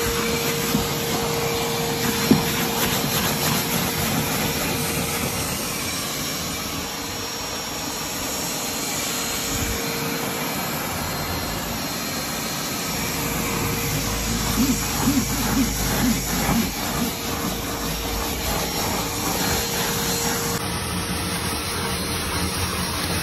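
Vacuum cleaner running steadily with a thin motor whine, its hose nozzle sucking dirt off a car's rubber floor mat. For a few seconds past the middle the sound turns rougher and more uneven.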